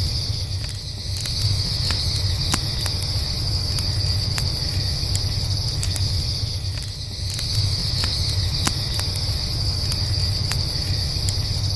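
Campfire crackling, with scattered sharp pops over a low steady rumble, while crickets chirp steadily in the background.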